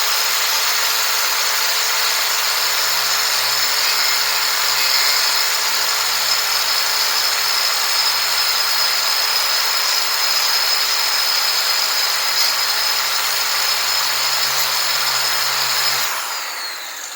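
Angle grinder with a flap disc working a rusty steel plate to smooth out grinding lines, running steadily with a high whine. About sixteen seconds in it is switched off and spins down.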